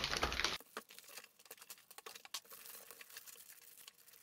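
Faint crinkling and rustling of a clear plastic bag around a boxed rework station as it is handled and lifted out of a cardboard box, with many small scattered clicks; a louder rustle in the first half-second.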